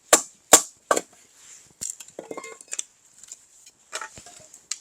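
Split firewood knocking and clattering: three sharp wooden knocks in quick succession, then lighter scattered clatter of pieces.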